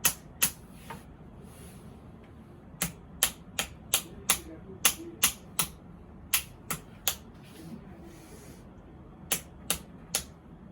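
A series of sharp, separate taps or clicks, about sixteen in all, coming in short runs of two or three roughly a third of a second apart, with pauses between the runs.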